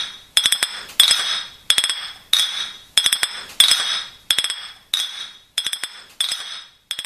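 Rhythmic clinking: clusters of light taps on a hard, ringing object about every two-thirds of a second, each leaving a bright ringing note that dies away before the next. The strikes grow fainter near the end.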